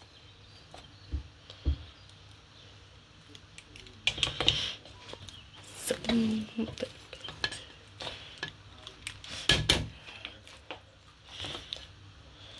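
A plastic serving scoop scraping and knocking against a stainless steel pot as mashed potato is dished out, with scattered clatter of utensils and dishes. The loudest knocks come about four, six and nine and a half seconds in.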